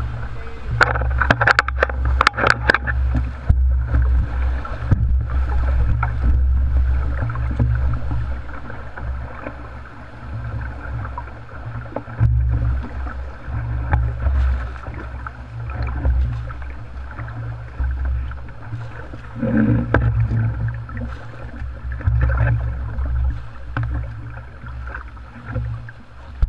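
Whitewater of a Colorado River rapid rushing and crashing around a rowboat, waves slapping the hull, over a deep rumble that swells and fades. A burst of sharp splashes comes between about one and three seconds in.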